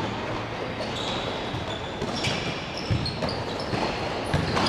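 Futsal being played in a large sports hall: a ball struck and bouncing on the court, with a sharp knock about three seconds in and another near the end, and short high squeaks of shoes on the court, all echoing in the hall.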